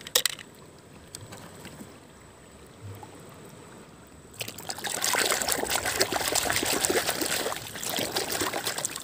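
Running water trickling and splashing over a plastic toy truck as it is rinsed clean, starting suddenly about four seconds in after a quieter stretch. A single knock near the start.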